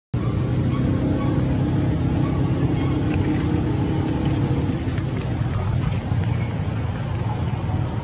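A motor running steadily, a continuous low drone.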